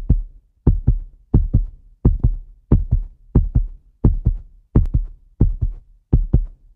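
Heartbeat sound effect: regular double 'lub-dub' thumps, a little under 90 beats a minute. The two thumps of each beat are about a fifth of a second apart, with dead silence between beats.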